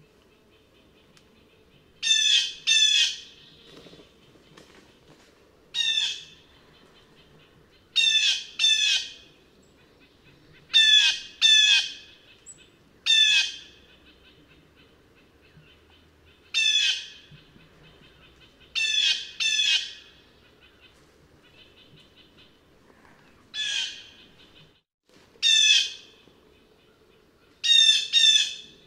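Blue jay giving its harsh 'jay' call, singly or in quick pairs, about every two to three seconds.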